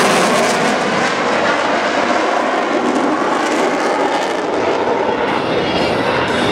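Eurofighter Typhoon's twin EJ200 jet engines running loud during a display flypast: a broad, steady rushing noise whose sharp upper hiss thins out about four and a half seconds in.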